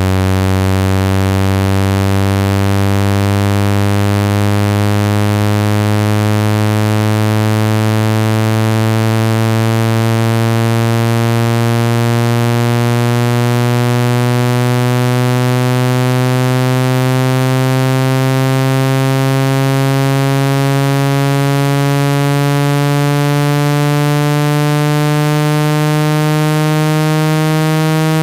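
A loud, buzzy low electronic tone with many overtones, rising slowly and steadily in pitch. It is a synthesized speaker-cleaning tone, played to vibrate water out of a phone speaker.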